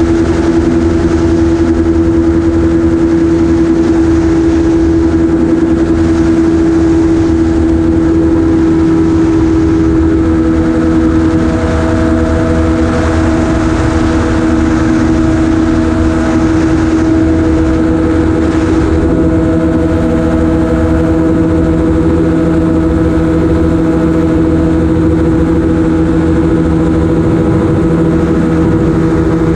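Amphibious gyroplane's engine and propeller running steadily at climbing power, picked up by a camera mounted on top of the aircraft, with a constant rush of air over it.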